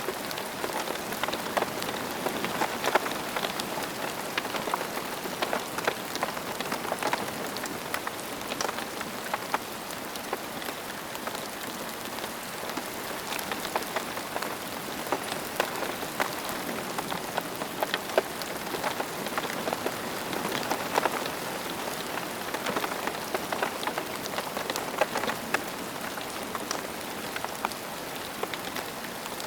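Steady rain falling on a surface, a dense patter of individual drops over an even hiss.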